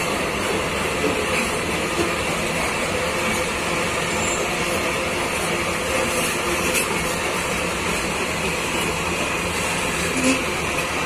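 Freight train of open-top steel wagons rolling past close by: a steady rumble and rattle of wheels on the rails, with a few sharper knocks, the loudest near the end.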